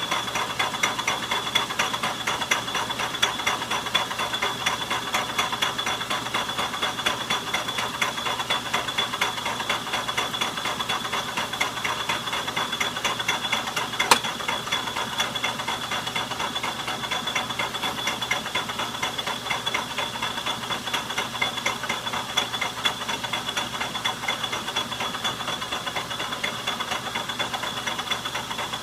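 Logan metal lathe running under power as a WNMG carbide insert turns the nut, its gears giving a steady fast clatter under a constant high whine. One sharp click about halfway through.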